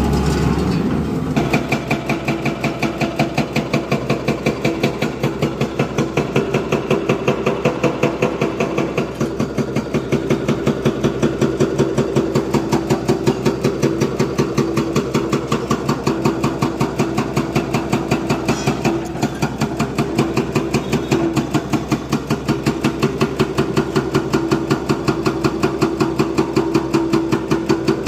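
Diesel engine running steadily at low speed with an even, rapid knocking pulse; the sound changes to this pulsing about a second in.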